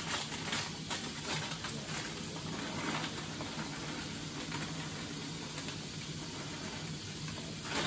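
Plastic snack bag crinkling and rustling as it is opened and shaken out, with puffed potato snack straws spilling onto a plate; a run of small crackles over a steady hiss.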